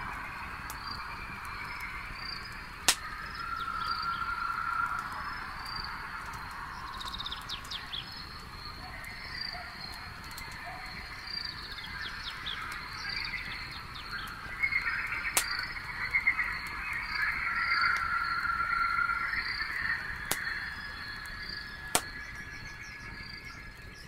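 Night ambience: a cricket chirping in an even, steady rhythm over a hazy chorus of other night callers. A wood campfire gives a few sharp, scattered pops.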